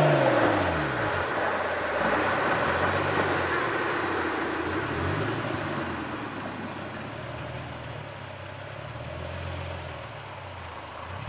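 1998 Acura NSX-T's V6 heard through a GT lightweight aftermarket exhaust from the rear bumper. The revs fall away at the start, rise and drop a couple of times, then settle into a steadier, quieter cruise, under road and wind noise.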